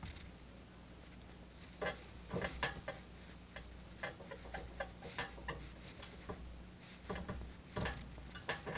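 Handling noise: a run of irregular light clicks and taps starting about two seconds in, over a low steady hum.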